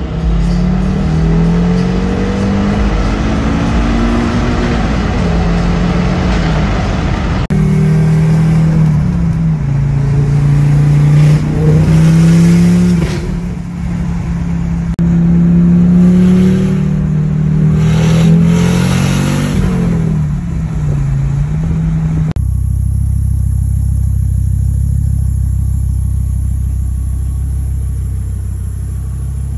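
1994 Audi S4's turbocharged 20-valve inline five-cylinder engine, with a 3-inch straight-pipe exhaust and no catalytic converters, heard from inside the cabin on acceleration pulls. The engine note climbs with the revs and drops back at each gear change, across a few short clips. About 22 seconds in it changes to a steady low idle.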